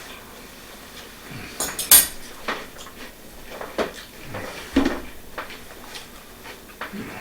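Cutlery and cookware clinking and clattering in a run of sharp, separate knocks, the loudest about two seconds in.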